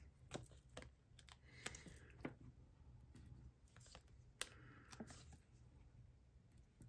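Faint paper-craft handling: light taps, clicks and short rustles of small card pieces and a sheet of mini foam dimensionals being picked up and set down, with one sharper click about four and a half seconds in.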